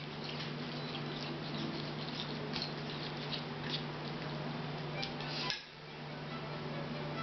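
A utensil clinking and scraping against a bowl in light, irregular taps, as mashed potato is served, over a steady low hum.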